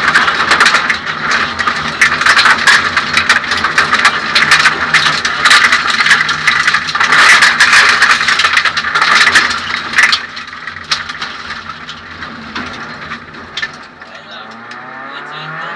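Inside the cabin of a Suzuki Swift 1600 N2 rally car at speed on a gravel road: its 1.6-litre four-cylinder engine runs hard under loud road noise and a dense rattle of stones striking the underbody. About ten seconds in the rattle and noise drop, leaving the engine more plainly heard, and its note rises near the end as the car accelerates.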